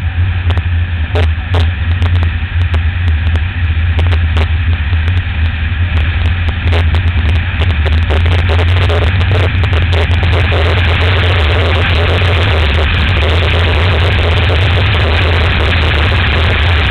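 Motorcycle riding at road speed, heard from the bike: a steady low drone from the engine and wind over the microphone, under a loud rushing wind noise. The rush grows louder and denser about halfway through, with a few sharp wind buffets or knocks in the first few seconds.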